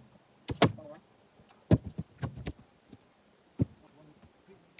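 A series of irregular sharp wooden knocks and thuds, about eight in under five seconds, as a person steps down off a sawn jarrah round and walks over bark and wood debris.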